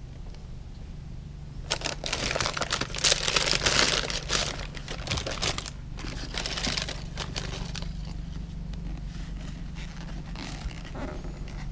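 Tissue paper in a shoebox rustling and crinkling as hands fold it back around a football boot. It comes in irregular bursts, starting about two seconds in and loudest soon after, then quieter handling near the end.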